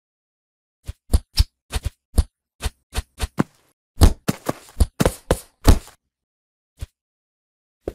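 Cartoon fight sound effects: a quick run of sharp punches and hits, then a denser flurry of blows with scuffling about four seconds in, ending around six seconds, and a single tap near the end.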